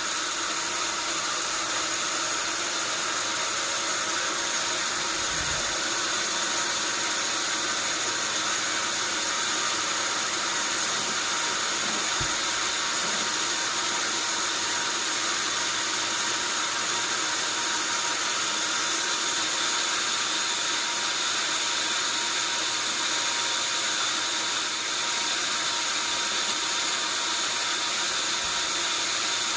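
Sawmill machinery running steadily: a constant high hiss with a faint steady whine, and a couple of faint low knocks.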